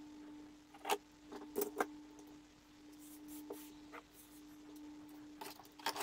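A few light clicks and knocks as a cast plaster tile is handled and set on a wooden tabletop, over a faint steady hum.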